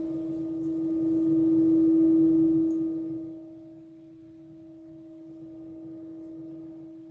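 Singing bowl ringing one steady low tone with fainter overtones and a slow wavering underneath, swelling for the first couple of seconds and then fading to a softer sustained hum.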